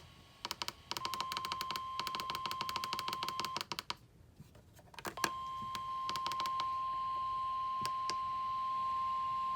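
NOAA Weather Radio warning alarm tone: a steady single beep near 1 kHz (the 1050 Hz alert tone) that announces a warning. It breaks off for about a second and a half and then resumes, and over its first part there are rapid crackling clicks.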